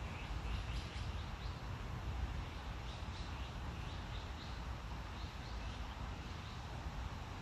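Faint, short bird chirps repeating at irregular intervals over a steady low rumble of outdoor background noise.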